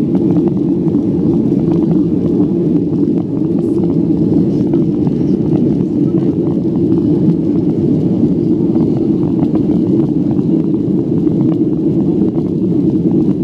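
Steady cabin noise of a jet airliner climbing after takeoff: engine and airflow noise heard from inside the cabin as a loud, deep, even hiss-like rush with no breaks.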